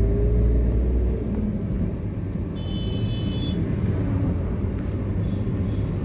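A motor vehicle running with a steady low rumble, its engine pitch rising slightly in the first second. A short high-pitched tone sounds about halfway through.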